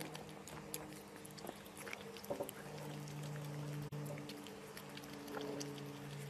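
A pug licking a treat on a stick: irregular wet lapping and smacking clicks over a steady low hum.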